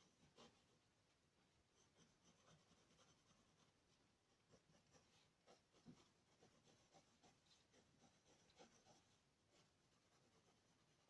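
Faint pencil strokes scratching on paper in short irregular runs, with a few soft taps.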